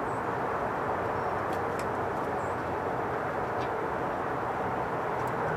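Steady outdoor background noise, an even hiss and rumble, with a few faint light clicks from hand work on a truck's rear brake backing plate.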